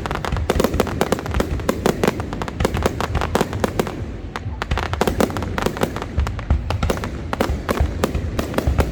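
Fireworks display going off in a dense, unbroken barrage: many sharp bangs and crackles a second over deeper booms.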